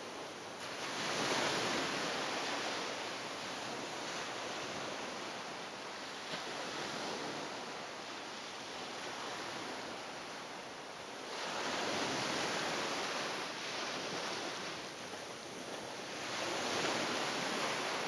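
Sea waves washing against the shore in a continuous rushing wash that swells louder three times: about a second in, a little past halfway, and near the end.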